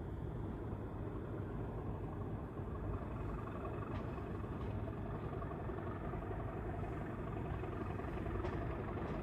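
Class 37 diesel locomotive's English Electric V12 engine running at a distance, a steady low rumble that builds a little from about three seconds in.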